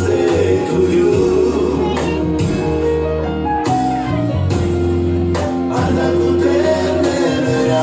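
Music playing: a song with singing over a steady bass line.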